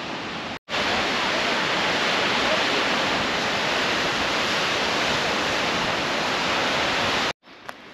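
Steady rushing of white water cascading down a rocky mountain creek waterfall. It starts abruptly about half a second in and cuts off suddenly near the end.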